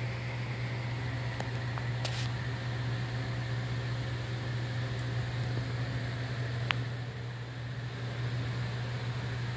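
Steady low machine hum with an even hiss, like a running fan, with a couple of faint clicks.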